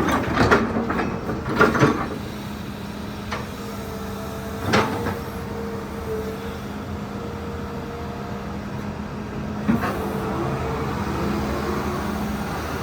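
Komatsu PC200-11 hydraulic excavator running, its diesel engine holding a steady hum while the hydraulics are worked, with a few sharp metallic clanks in the first five seconds and a wavering hydraulic whine near the end.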